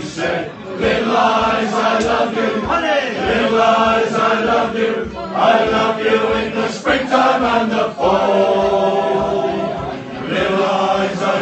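A crowd of people singing a song together, many voices holding long drawn-out notes.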